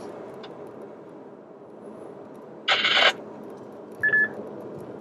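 Steady road and drivetrain noise inside a Ferrari Roma's cabin on the move. A bit over halfway a short, loud hiss of noise cuts in for under half a second, and near the end a single short high beep sounds.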